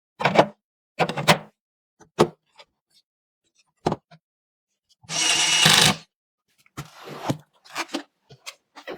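PC components being handled and fitted during a build: several sharp plastic and metal clicks and knocks, then a rasping, rustling sound about a second long just past the middle, followed by lighter tapping and clicking.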